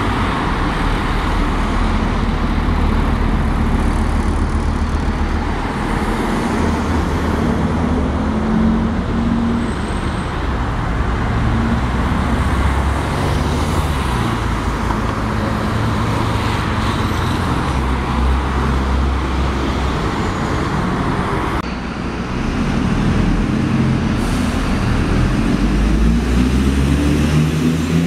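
Road traffic at a junction: diesel buses and cars driving past with engine hum and tyre noise. In the last few seconds a single-deck bus pulls away, its engine rising in pitch as it accelerates, echoing under the bus station roof.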